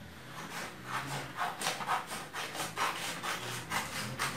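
Scissors cutting a sheet of paper along its fold: a quick, even run of snips, about three to four a second, with the paper rustling.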